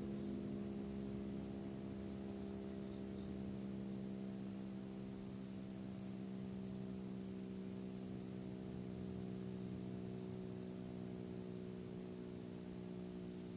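FS&S (Federal Signal) STH-10 outdoor warning siren sounding a low, steady tone that slowly sinks in pitch. Crickets chirp faintly and steadily in the background.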